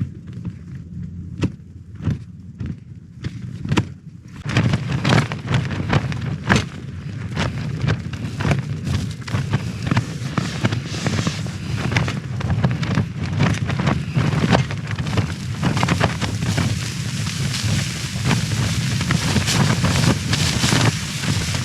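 Strong wind buffeting a tent, the fabric flapping and snapping in quick cracks over a steady low rumble. It grows louder and busier about four seconds in.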